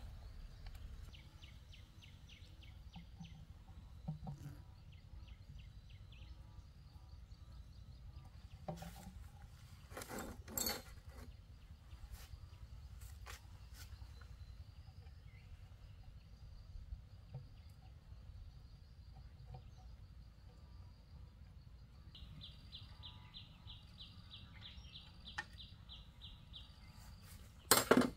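Quiet outdoor background with a low rumble and faint insect chirping in evenly spaced trains, about five chirps a second, strongest in the last third. A few soft knocks around the middle and one sharp, loud knock just before the end.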